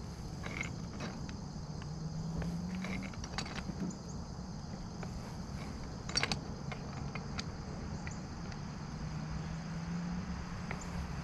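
Insects chirring steadily, with a low hum underneath that slowly rises in pitch now and then. Scattered light clicks and knocks come through, the sharpest about six seconds in.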